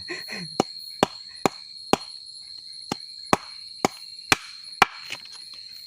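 Knife chopping fish into triangular pieces: nine sharp chops, about two a second, with a short pause about halfway through.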